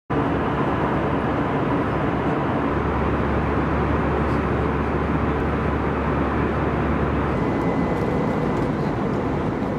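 Steady engine and air noise inside an airliner cabin in flight.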